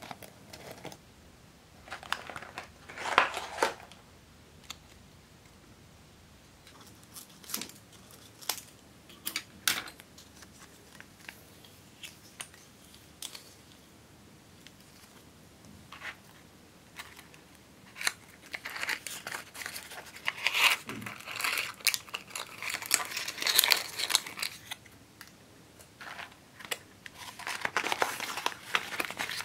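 Cardboard makeup packaging being handled: irregular crinkling and rustling in short bursts with light clicks, with quiet stretches between, busiest in the second half.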